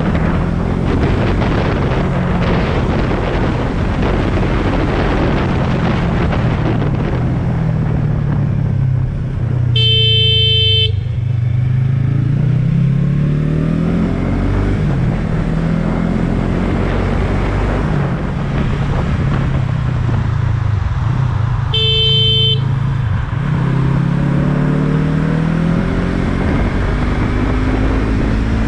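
Yamaha MT-03 motorcycle engine running in traffic, its pitch rising and falling as the rider accelerates, changes gear and slows. A vehicle horn sounds twice, each blast about a second long, about a third of the way in and again about three-quarters of the way in.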